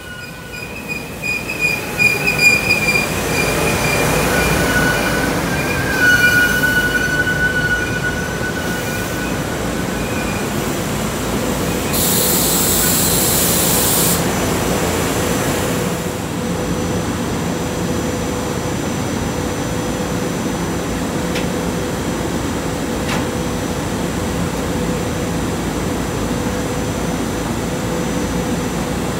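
SEPTA Silverliner IV electric multiple-unit train pulling into a station, its wheels squealing with high tones as it brakes, then a two-second hiss of air about twelve seconds in. It then stands at the platform with a steady hum and a single steady tone.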